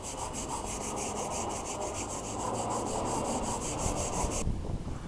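Scouring pad scrubbing a brick with cleaning solution: rapid, even back-and-forth strokes that stop abruptly near the end.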